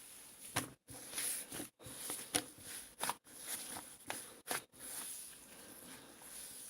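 Cloud slime being squished and stretched by hand: soft, fluffy rustling broken by irregular sharp crackles and pops, which thin out in the last couple of seconds.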